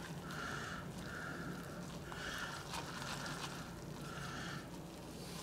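Metal spoon stirring instant noodles and a thick seasoning sauce in a disposable noodle cup, with a soft scrape and squish at each stroke, about one or two strokes a second, over a faint steady hum.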